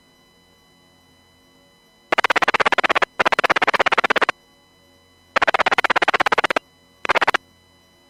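Marine VHF radio receiver putting out four bursts of rapid pulsing buzz, about fifteen pulses a second. The first three bursts last about a second each and the last is brief, with a faint steady hum between them.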